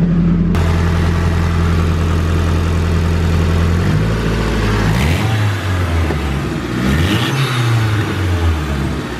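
Nissan SR20DET turbocharged four-cylinder engine idling steadily, then revved up and let back down twice in the second half. The owner says the engine has an exhaust leak.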